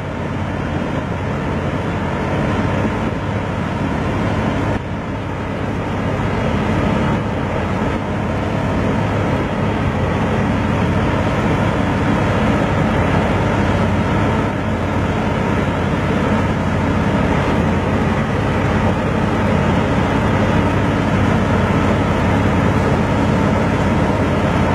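Sevtec Vanguard hovercraft's engine and lift and thrust fans running steadily on hover at low cruising speed, heard from on board as a loud, even hum with a rush of air. The level dips briefly about five seconds in, then builds slightly.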